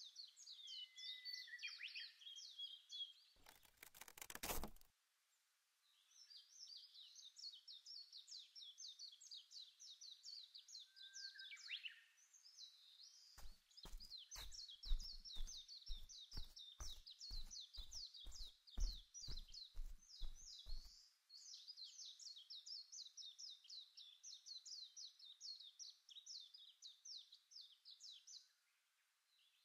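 Birds twittering faintly in a fast, unbroken stream of short high chirps. A series of sharp clicks comes through the chirping near the middle.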